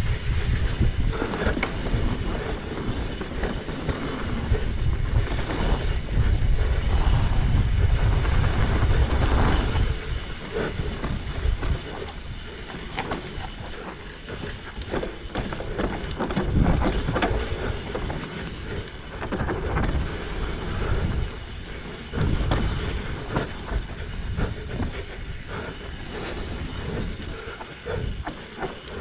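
Mountain bike riding fast down a dirt trail: tyres rolling over dirt and roots, with the bike rattling and clattering over bumps, and wind rushing over the microphone. The wind rumble is heaviest for the first ten seconds, and the knocks and rattles run throughout.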